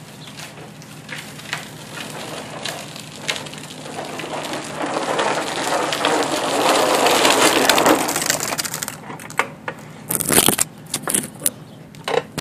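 A hissing rush that builds over a few seconds and then fades, over a faint steady hum; near the end come knocks and rubbing as the camera is picked up and a finger brushes the lens.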